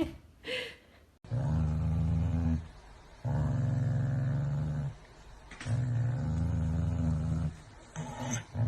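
Dog growling in three long, low, steady growls with short pauses between them.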